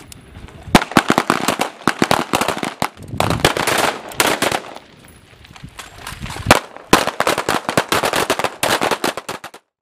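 Rapid gunfire from a line of shooters firing carbines and pistols together, many shots overlapping, with brief lulls at the start and about five seconds in; it cuts off just before the end.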